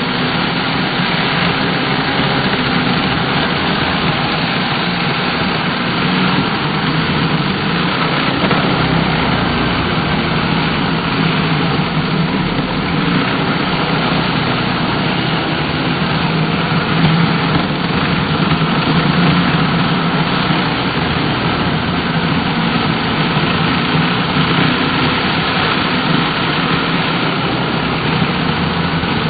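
Gas chainsaw engine running steadily at an even speed, with no revving up or down.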